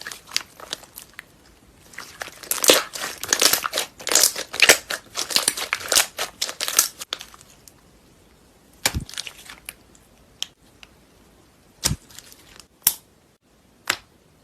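Clear slime being squeezed and worked by hand: a dense run of sticky crackles and pops lasting about five seconds, then a few single, separate pops.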